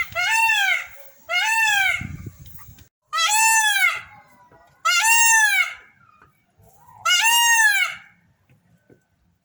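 Indian blue peacock giving five loud, wailing calls, each with a quick rise and fall in pitch, spaced about a second and a half apart; the calls stop about a second before the end.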